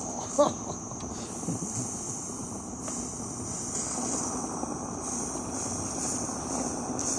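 Live-steam model steam locomotive standing in steam, hissing steadily, with a brief sharp click about half a second in.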